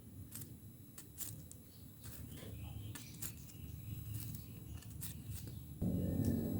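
Knife cutting up a fresh pineapple, core included: scattered light clicks and knocks of the blade at an uneven pace. Near the end a steady low hum starts suddenly.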